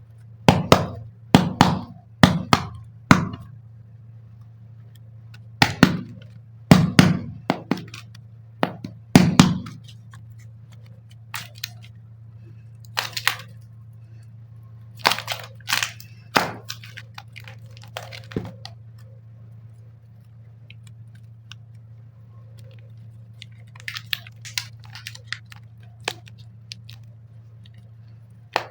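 Clay containers and packaging being handled during an unboxing: a run of sharp clicks and taps, several in quick succession over the first ten seconds and sparser after, with faint crinkling near the end, over a steady low hum.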